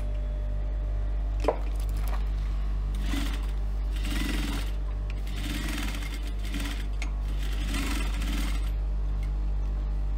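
Industrial flatbed sewing machine stitching through faux leather in three short runs, going back and forth across a handle strap, over a steady low hum. One sharp click comes about a second and a half in.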